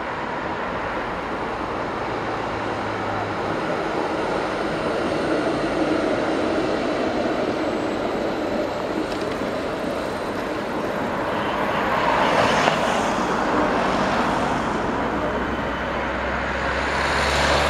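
A Helsinki MLNRV II tram and road traffic passing on a city street: a steady rumble of wheels, tyres and engines that swells as vehicles go by close. The loudest swells come about twelve seconds in and again near the end.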